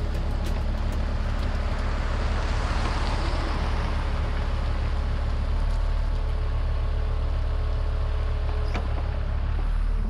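Mini excavator's diesel engine running steadily under load as it digs, with a broad rushing noise that swells a few seconds in and eases off.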